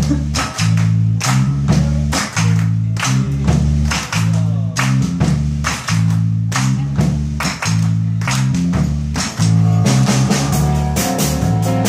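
Small live band playing: an electric bass walks a repeating line under a drum kit keeping a steady beat, and piano chords join in from about ten seconds in.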